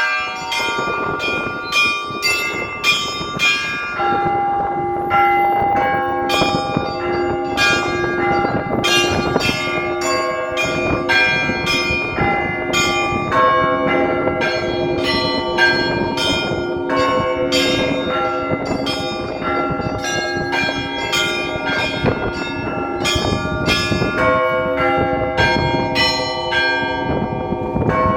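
Russian Orthodox Easter bell ringing: several church bells of different pitches struck in a fast, continuous rhythmic peal, the small high bells hit a few times a second over the sustained ringing of the larger, lower bells.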